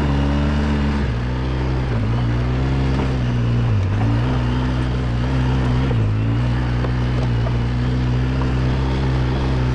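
Quad bike (ATV) engine running steadily under way, working up a gentle climb. Its pitch dips briefly twice, about four and six seconds in, and picks back up each time.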